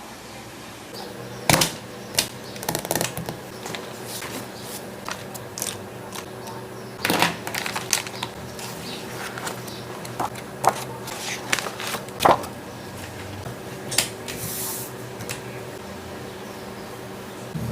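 Drawing supplies being handled and used close to the microphone: irregular sharp clicks and taps, with short scratching strokes on paper between them.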